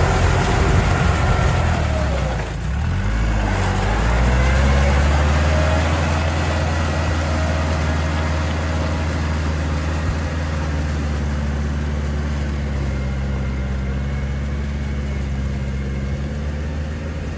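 Kubota L5018 compact tractor's diesel engine running, its pitch dipping and recovering about two to three seconds in, then holding a steady drone.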